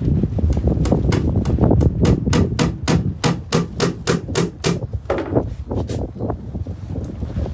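A quick, even run of around fifteen sharp knocks, about four a second, starting about a second in, then a few softer ones, over a steady rumble of gale-force wind on the microphone.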